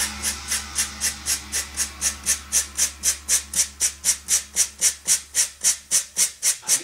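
Quick, even rubbing strokes by hand against the edge of a pale blue piece of work, about four strokes a second, each a short dry hiss.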